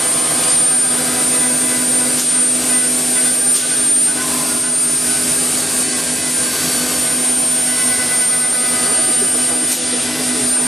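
Woodworking machinery running steadily: a continuous drone with a constant low hum and a thin high whine, unchanging throughout.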